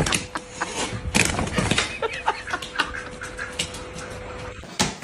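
Sounds of a pet animal mixed with many short clicks and knocks, over a faint steady tone.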